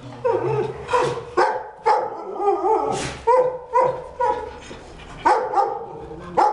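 A large dog barking over and over, about two barks a second, each bark with a clear pitched tone.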